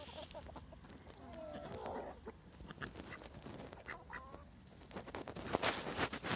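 Chickens clucking softly as the flock feeds on scattered grain, with short calls about two seconds in and again about four seconds in. A run of sharp taps and rustles gets louder near the end.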